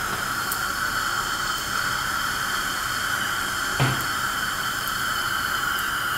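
Dental surgical suction hissing steadily as it draws fluid from the extraction site, with one brief low knock about four seconds in.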